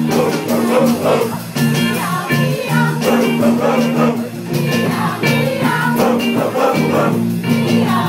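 Live band playing an upbeat soul and rock-and-roll groove, with electric guitars, bass and drums and a voice singing over it.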